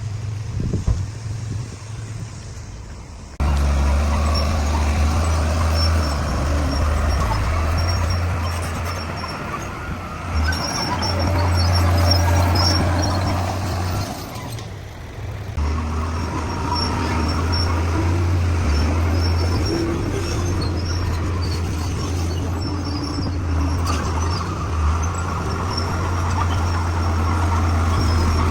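Bulldozer's diesel engine running with a steady low drone. It gets abruptly louder about three seconds in and dips briefly about halfway through.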